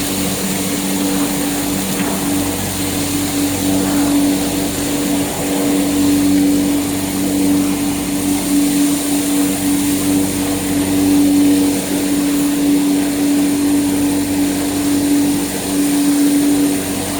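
Industrial bubble washing machine for leaf mustard and pickles running: a steady motor hum over a constant rushing noise, with no change throughout.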